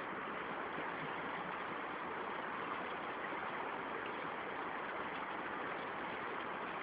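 Steady rush of shallow river water flowing, an even noise with no separate splashes standing out.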